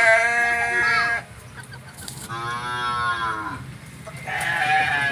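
Sheep bleating: three long, drawn-out calls, one at the start, one in the middle and one near the end.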